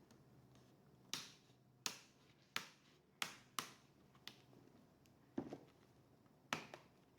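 About eight sharp clicks and snaps, irregularly spaced, from hands working on a laptop's case and parts while upgrading its RAM.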